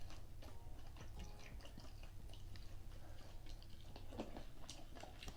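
Faint chewing of crispy fried chicken skin, with many small crunchy clicks.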